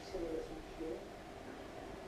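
A faint, brief murmur of a voice in the first second, then quiet room tone.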